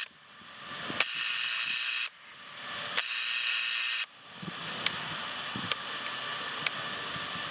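Dual-MOT spark gap Tesla coil fired twice in bursts of about a second each, a loud hiss that starts and stops abruptly. After the second burst a fainter steady hiss remains, with a few sharp snaps.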